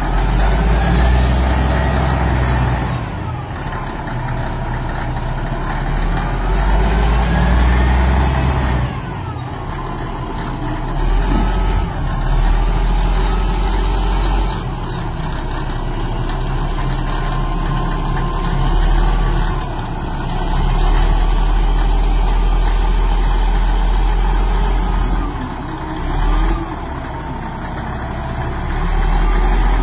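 Caterpillar motor scraper's diesel engine running with a deep rumble, its speed rising and falling several times as it is revved and eased off.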